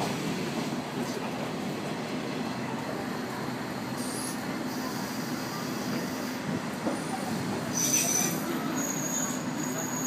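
Kazekko diesel railcar, a converted KiHa 48, running through an open window: a steady engine drone under the running noise of the car. A thin, high wheel squeal sets in near the end.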